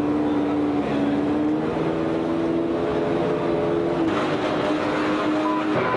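A racing car engine runs at steady, fairly low revs. The pitch creeps slowly upward, then drops back about two-thirds of the way through.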